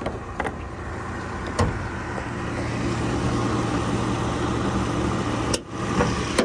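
Hood of a 2015 Jeep Wrangler being unlatched and lifted: a couple of light clicks, then a loud sharp clack about five and a half seconds in, followed by two smaller knocks. Under it, the low steady hum of the Wrangler's 3.6-litre V6 idling.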